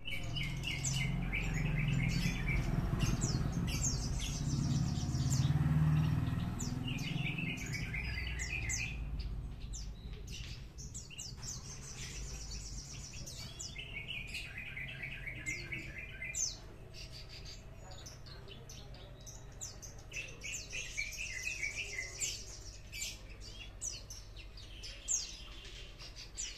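Caged Horsfield's bushlark (branjangan, Mirafra javanica parva) singing in the trotol style: about five bursts of fast rattling trills a few seconds apart, with sharp chips in between. A low rumble underlies the first several seconds.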